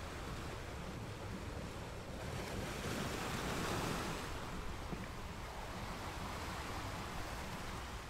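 Ocean surf washing onto a sandy beach: a steady rush of breaking waves that swells about halfway through and then eases off.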